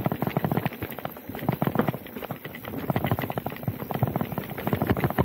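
Specialized Turbo Levo Gen 3 electric mountain bike clattering down a rocky dirt trail: a rapid, irregular patter of knocks and rattles as the tyres and frame take the bumps.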